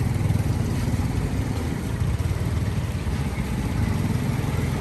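A small engine running steadily with a low rumble, like a motorbike idling close by.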